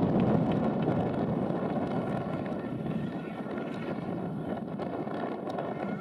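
Rally car engine running hard on a gravel stage, loud at first and then fading as the car draws away, leaving a fainter, steady engine note from the distance.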